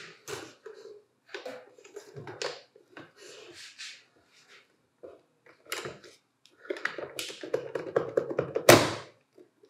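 Hard plastic Hitachi 18 V lithium-ion battery pack being slid along a Hitachi charger's rails and pushed into place: a run of plastic clicks, scrapes and knocks, thickest in the last few seconds, with one loud clunk near the end.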